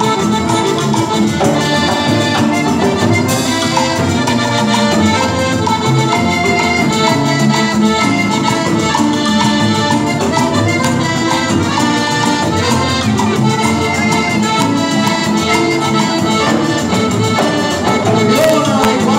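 Live Latin band music led by accordion, with a brass horn, drum kit and congas playing along.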